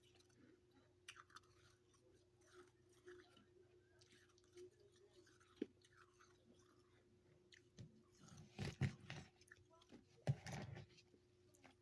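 Mouth crunching and chewing freezer frost: faint small crunches and clicks, then two louder bouts of crunching in the last third.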